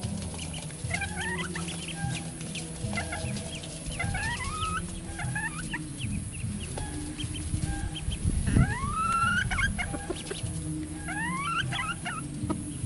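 Baby ducklings peeping: a busy run of short, rising chirps. The loudest is a long upswept call a little past the middle.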